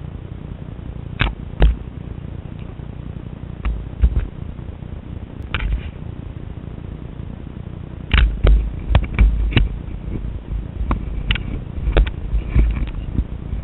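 Handling noise from a small handheld camera: irregular knocks, clicks and rubs of fingers on its body and microphone, over a low rumble, busiest in the second half.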